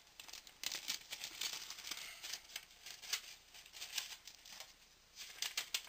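Packing material crinkled and torn by hand as a parcel is unpacked: irregular rustling and crackling, with a short lull about five seconds in.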